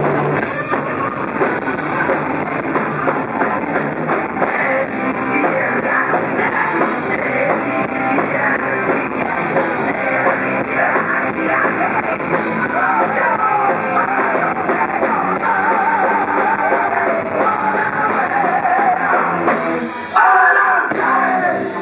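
Rock band playing live and loud: distorted electric guitars, bass and drum kit, with a singer's voice wavering over them. The sound gets louder a little before the end.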